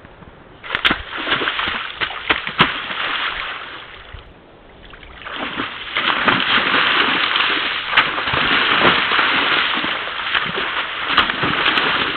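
A moose splashing, kicking and running through a shallow pool of water, in two bouts: one starting about a second in and a longer one from about five seconds on, with a few sharp knocks among the splashes.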